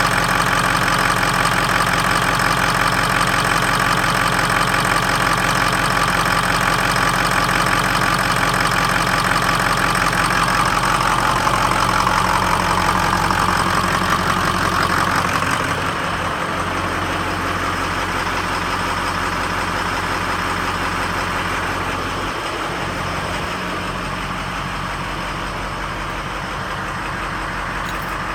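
Ford 6.0L Powerstroke V8 turbo-diesel idling with an uneven, rough beat that the owner takes for a misfire or rough idle. About halfway through, the engine note shifts lower and gets a little quieter.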